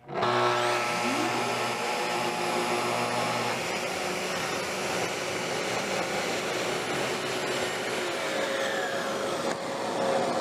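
Festool TS75 plunge-cut track saw starting up with its soft start, its pitch rising over the first second or so. It then runs steadily through a shallow quarter-inch cut along the guide rail, trimming the rail's new plastic splinter strip, while the Festool CT36E dust extractor runs with it. At the very end the saw is released and its pitch begins to fall as it winds down.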